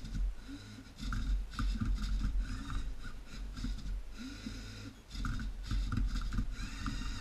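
LEGO Mindstorms NXT servo motors whirring and their plastic gears and beams clattering as the robot's arm tips and turns a Rubik's cube, in repeated bursts of a second or two with short pauses between moves.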